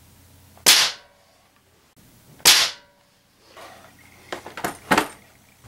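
Two loud shots about two seconds apart from a spring-piston Ruger Air Magnum air rifle, each a sharp crack with a short ringing tail, firing 7 grain .177 pellets at about 1200 fps through a chronograph. A quick run of small clicks and knocks follows near the end.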